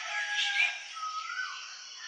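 Several birds calling over one another in a morning chorus: overlapping whistled notes and chirps, with a rising whistled call about a second in.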